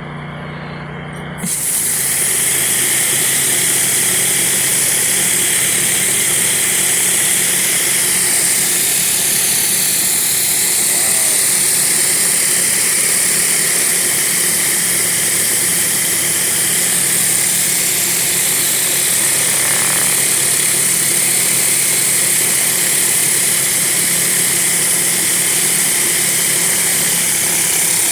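Pressure washer's engine running steadily; about a second and a half in, loud high-pressure water spray starts hissing and carries on evenly as a surface cleaner washes a concrete driveway.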